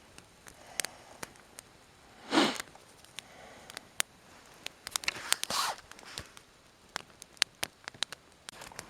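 Campfire of dry deadwood sticks crackling, with irregular sharp pops and snaps as the twigs catch. Two short louder rustles stand out, about two and a half and five and a half seconds in.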